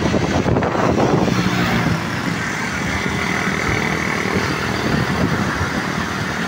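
Road traffic at close range: motorcycle and car engines running and the rush of tyres, a loud steady din.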